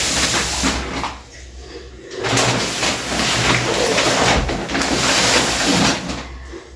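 Shopping bag rustling and crinkling as groceries are taken out of it, in two spells with a quieter lull about a second in.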